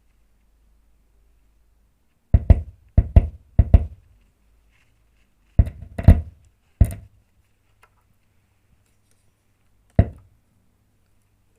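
A series of heavy, irregular knocks with a deep thud: six in quick pairs a couple of seconds in, three more around the middle, and a single one near the end. A faint steady low hum sits underneath.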